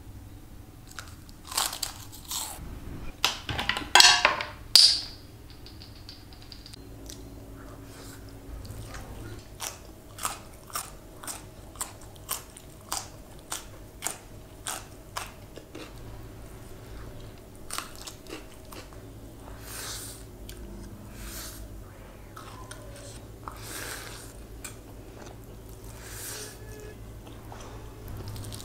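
Close-up eating sounds: a few loud crunching bites of a crisp puff-pastry biscuit in the first five seconds, then chewing with a run of evenly spaced crisp clicks, about one and a half a second, and softer chewing after that.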